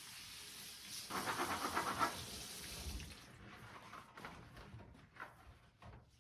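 Water running from a tap into a sink, splashing louder about a second in, then shut off about three seconds in. A few light knocks follow.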